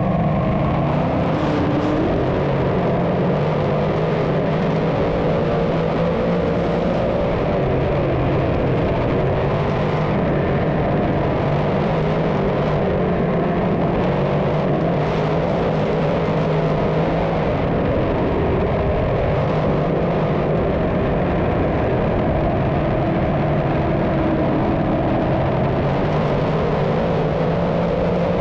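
A field of dirt Modified race cars running laps around the track. Their engines make a steady, unbroken wall of sound.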